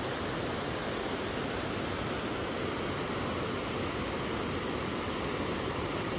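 Steady rush of whitewater rapids over a rocky riverbed.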